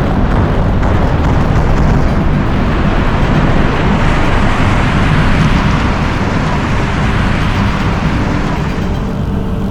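A loud, sustained rumbling roar that began suddenly just before and slowly fades, with music running underneath.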